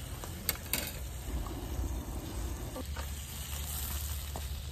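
Meat sizzling in a frying pan on a portable gas stove as it is stirred, with two sharp clicks in the first second.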